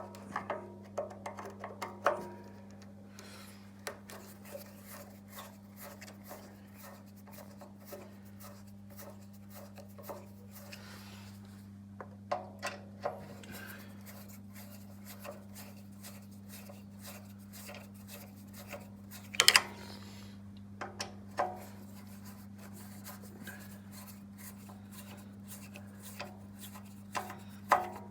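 Scattered light clicks, taps and rubbing of tools and chop-saw parts being handled during disassembly, with a louder cluster of knocks about two-thirds of the way through. A steady low hum runs underneath.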